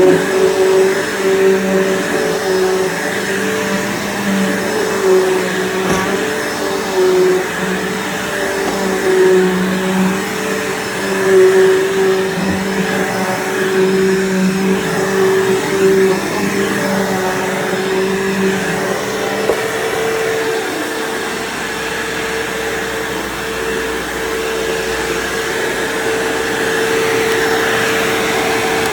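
Bissell PowerForce bagged upright vacuum cleaner running steadily. Its motor hum wavers in pitch for the first two-thirds, then holds a steadier, slightly higher tone.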